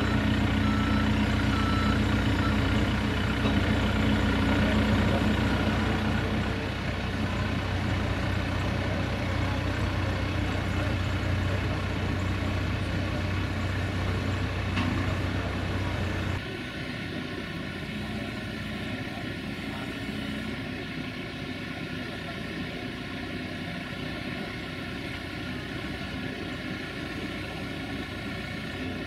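Heavy truck's diesel engine running steadily, with a reversing alarm beeping for the first second or so. About sixteen seconds in, the engine sound cuts off abruptly, leaving a quieter steady background hum.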